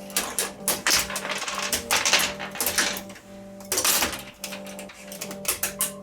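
Repeated sharp clicks and light clatter from handling and fitting LED backlight strips and their connectors into a TV's metal back chassis, over background music.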